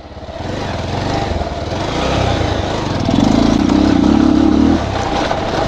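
Bajaj Pulsar 220's single-cylinder engine pulling the bike over a rough dirt track. The revs build over the first seconds and hold loudest for about a second and a half past the middle, then ease off briefly and climb again near the end.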